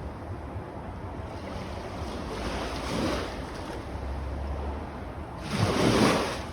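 Gentle waves lapping on a sandy beach. Two small waves wash in, the second and louder one near the end, over a steady low rumble.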